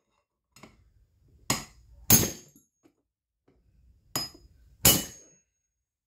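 A hammer strikes a soft metal rod used as a punch against a chainsaw's clutch, four sharp metallic blows with a short ring. They come in two pairs, each a lighter tap followed by a harder hit. The impacts are meant to shock the threaded clutch loose, and after repeated blows it breaks free.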